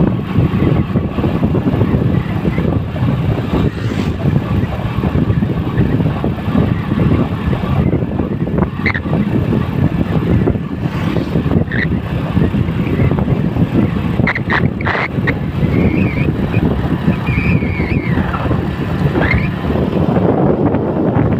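Steady wind rush and road noise from a motorcycle riding at speed, heavy and low, with a few brief high chirps in the second half.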